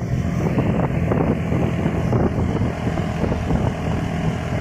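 A vehicle's engine running steadily while travelling along a road, with wind rushing over the microphone.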